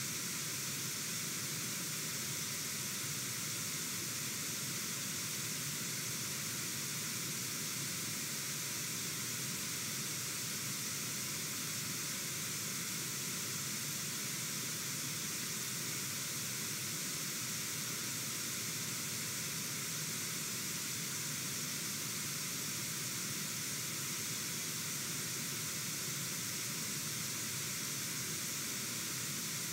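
Steady rushing of a fast-flowing river over rapids, an even hiss that holds at one level throughout.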